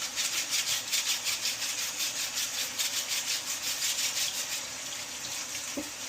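Brush scrubbing a Bosch dishwasher filter at the sink in quick, rhythmic scratchy strokes, about four or five a second, with water running from the tap. The scrubbing stops a little after four seconds in, leaving the steady hiss of the water.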